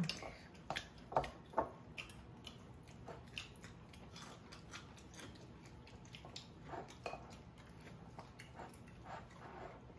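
People chewing and biting food, with scattered light clicks of chopsticks and a spoon against dishes.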